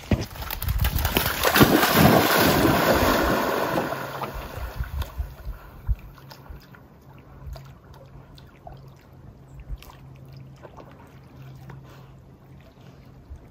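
Canoe out on the water, with water sloshing and wind gusting on the microphone, loudest for the first few seconds. It then settles into quieter water sounds with a few light knocks and a low steady hum.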